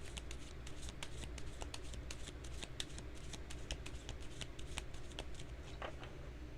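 A tarot deck being shuffled by hand: a rapid, irregular run of small card clicks.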